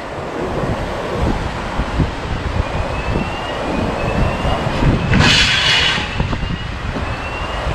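Rushing of a river in flood, a steady noisy roar with wind buffeting the microphone in uneven low gusts. A brief louder hiss comes about five seconds in.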